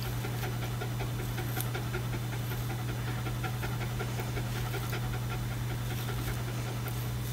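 Havanese dog panting quickly and evenly, over a steady low hum.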